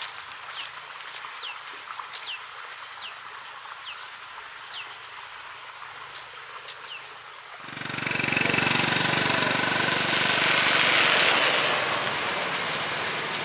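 A bird repeats a short falling chirp about once every second. About eight seconds in, the noise of a motor vehicle's engine comes in suddenly and stays loud to the end.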